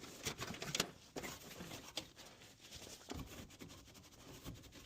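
Faint handling sounds of work inside a gas furnace cabinet: scattered light clicks and knocks with some rustling.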